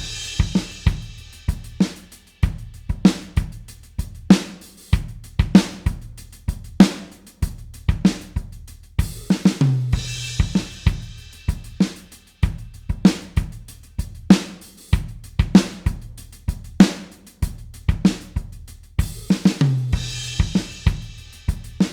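Acoustic rock drum kit playing a steady alternative-rock beat of kick, snare and hi-hat. Cymbal crashes come at the start, about halfway and near the end, and the beat ends abruptly.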